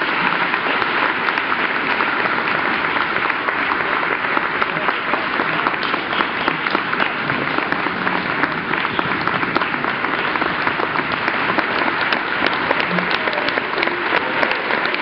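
Audience applauding, a steady dense clapping without music.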